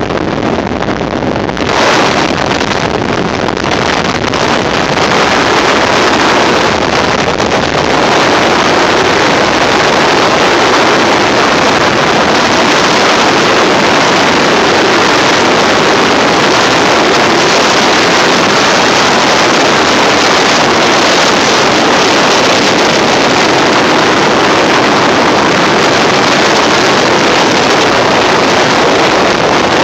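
Motorboat under way: a steady, loud rush of wind on the microphone mixed with engine and water noise, growing a little louder and steadier a few seconds in.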